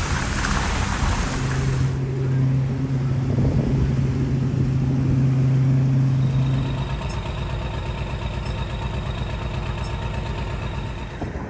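Motor vehicle engine noise: a rushing noise at first, then a steady low engine hum, which gives way about seven seconds in to a steadier whine made of several even tones.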